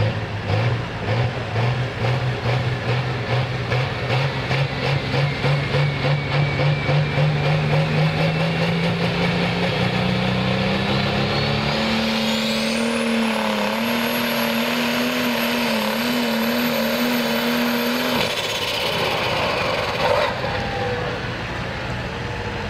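Turbocharged diesel engine of a Super Stock pulling tractor revving in pulses on the hook, its pitch slowly climbing; then the turbochargers spool up into a high, steeply rising whistle held with the engine at full power for several seconds, before the engine cuts back and the whistle falls away near the end.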